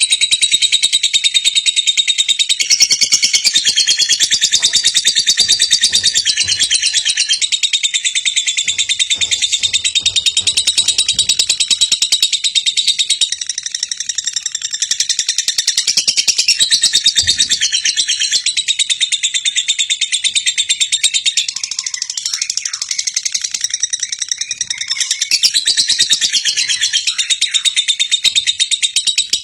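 Lovebird singing its long ngekek: a loud, unbroken run of very fast, high-pitched chattering notes with no pause, cutting off suddenly at the very end.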